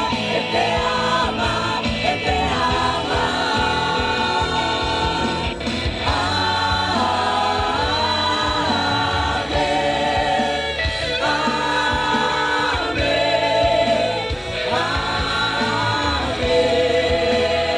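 Live gospel worship music: a choir singing long held notes over instrumental backing.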